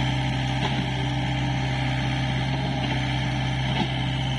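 Excavator's diesel engine running steadily at an even pitch, with a few faint clicks over it.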